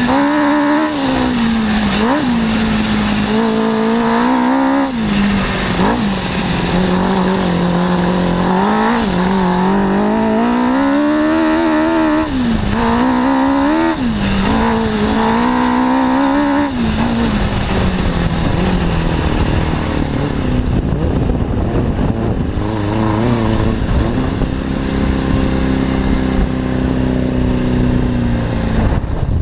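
A Suzuki 600 cc four-cylinder motorcycle engine powering an off-road buggy under way, revving up and down over and over for the first half. It then settles to a steadier, lower note near the end.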